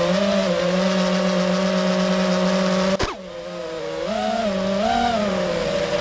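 FPV quadcopter's brushless motors and propellers whining steadily, heard from the drone itself. About halfway there is a sudden click, the pitch drops away and the sound goes quieter as the throttle is cut; then the motor whine comes back, rising and falling in pitch as the throttle is worked.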